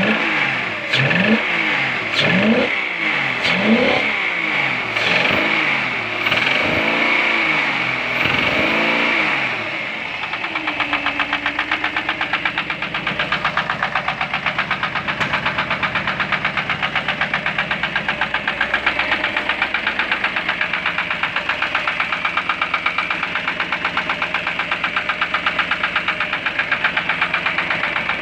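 Mercedes-Benz M119 4.2-litre V8 being revved in short repeated blips, rising and falling about once a second. About ten seconds in it drops to a steady idle with a fast, even knock: the engine is knocking, cause unknown to the owner.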